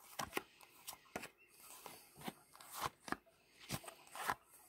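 Cards dealt one by one from a hand-held deck and laid onto a soft cloth: an irregular run of soft card flicks and slides, about a dozen in all.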